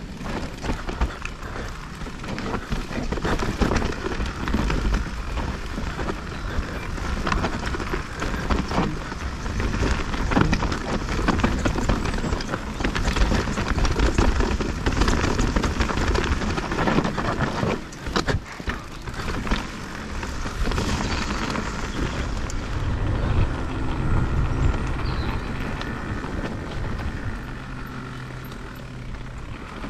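Mountain bike riding fast down a rough trail: the tyres run with a steady rumble, and the bike knocks and rattles over the bumps.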